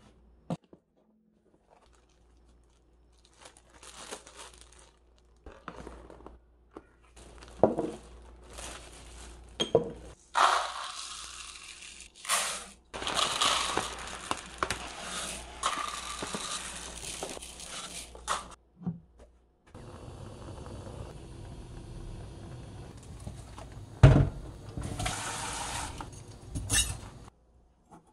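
Scattered rustles and handling noises of plastic packaging, then dry barley grains pouring from a paper bag into a paper cup and bowl in a long hissing rush. Near the end, steady running water for several seconds.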